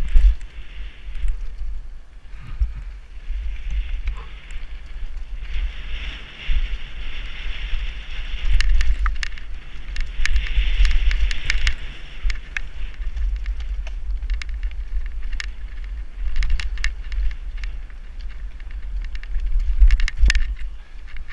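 Downhill mountain bike descending a dirt singletrack. Wind buffets the microphone with a heavy low rumble, the tyres hiss over the dirt, and bursts of sharp rattles and clicks come from the bike over rough ground, thickest a third of the way in, again past halfway and near the end.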